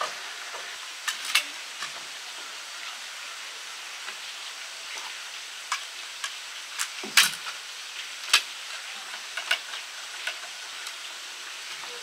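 Sharp clicks and knocks, about eight scattered through, the loudest a little past seven seconds in, as wooden sectional poles are handled and their sections fitted together. A steady hiss runs underneath.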